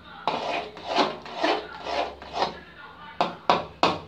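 A slotted metal spatula scraping round an aluminium kadai as it stirs a wet coconut-and-sugar mixture. The strokes come about two a second, with a short pause just before the last few.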